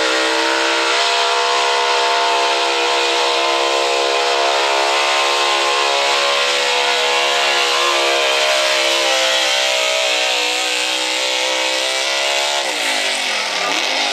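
Gas-engined Chevrolet 4x4 pickup at full throttle pulling a weight sled, its engine held at high revs with the pitch sagging slightly under the load. Near the end the revs fall away sharply as the pull ends.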